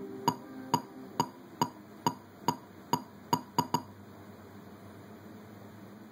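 Music played through the Elysium Porto VII portable speaker: a sharp clicking beat a little over two per second, over a low chord that fades in the first half second. The clicks come closer together and stop a little under four seconds in, leaving faint hiss.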